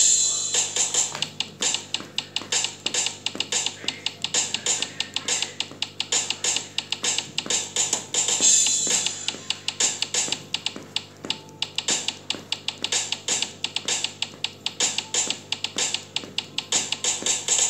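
Virtual drum kit app (Real Drum) tapped with fingers on a Samsung Galaxy Note 8, sounding from the phone: quick drum and cymbal hits several times a second, with heavier cymbal crashes near the start and about halfway through.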